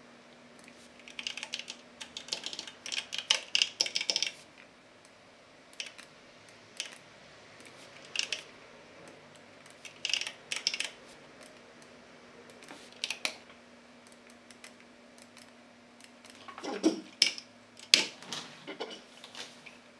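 Computer keyboard typing in bursts: a quick run of keystrokes about one to four seconds in, scattered single key presses after that, and another short run near the end. A faint steady hum sits underneath.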